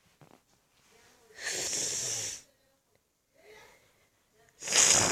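Two heavy, breathy exhales, each a hiss lasting about a second, the first about a second and a half in and the second near the end.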